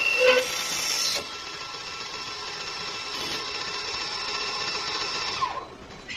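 CNC wood lathe running: a wooden blank spins while the turning tools cut it, giving a steady machine whine over cutting noise. Near the end a short falling whine comes and the sound drops away.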